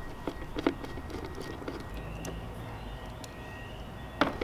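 A few sharp metal clicks and taps as a screwdriver, terminal screw and the ring lug of the inverter's negative cable are worked onto the negative terminal of a 12 V LiFePO4 battery: a couple about half a second in and a quick cluster near the end.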